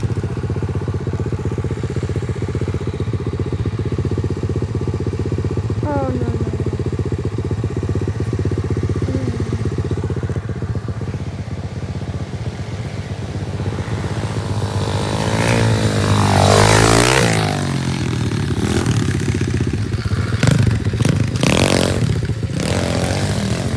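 Dirt bike engine running steadily. A bit past halfway its pitch swings up and then drops sharply, the loudest moment. A few sharp knocks follow near the end.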